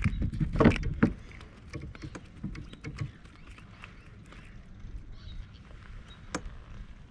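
Knocks and clicks of hands and gear on a plastic fishing kayak, loud and clustered for about the first second, then scattered small taps with one sharp click near the end, over light water and wind noise.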